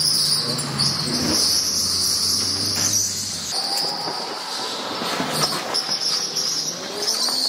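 Electric go-kart running on an indoor track: a steady high-pitched motor whine over a low hum. Both drop away about three and a half seconds in, and the whine picks up again a second or so later.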